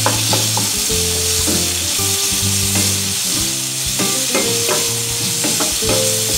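Chopped shallots, garlic, ginger, coconut, dried red chillies and tomato sizzling in hot oil in a non-stick pan as a wooden spatula stirs them, with a steady hiss and scattered scrapes and light knocks of the spatula on the pan.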